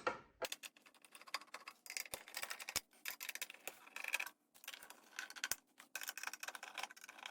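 A screwdriver backing small screws out of a cassette deck's metal chassis: quick runs of dry ticking and clicking, with short pauses between screws.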